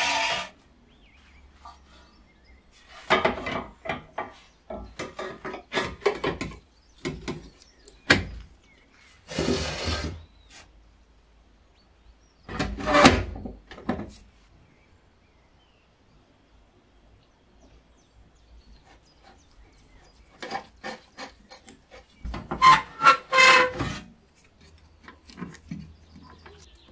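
Metal parts of a restored antique kerosene stove being handled and fitted together on a wooden workbench: several separate bursts of scraping and clicking, metal against metal and against wood, with pauses between.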